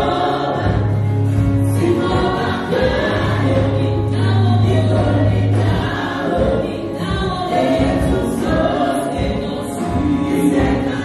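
A gospel choir singing a worship song with band accompaniment, over low bass notes held for a couple of seconds at a time.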